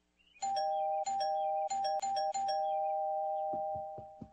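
Two-tone doorbell chime rung about five times in quick succession, the strikes overlapping and ringing on before fading out. A few faint knocks near the end.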